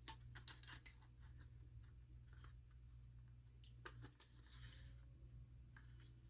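Near silence with faint scattered clicks and scrapes: a laptop's cover being worked into place by hand.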